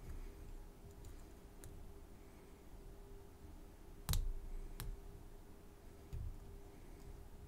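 Small metallic clicks of a lock pick and tension wrench working the pins inside an American A701D padlock, a few scattered light ticks with two sharper clicks close together a little past the middle.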